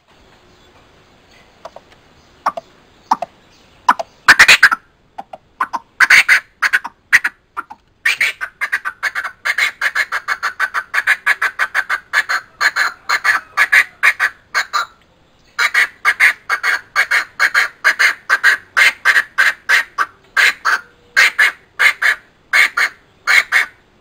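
Coucal calling in a fast series of short, harsh notes, about four a second. A few scattered calls come first, then two long runs with a short break near the middle.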